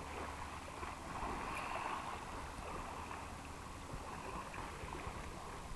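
Water splashing and lapping steadily as a dog paddles through a lake.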